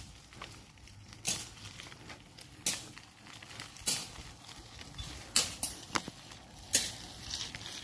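Bicycle rolling slowly over a potholed, gravel-patched road, with sharp clicks and rattles about once a second, some in quick pairs, as it jolts over the broken surface.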